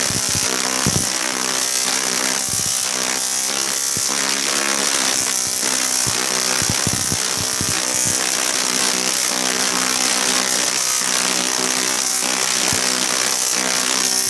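Large dual resonant solid state Tesla coil (DRSSTC) firing, its sparks giving a loud, steady pitched buzz broken by frequent sharp cracks as the arcs branch through the air and strike the ground.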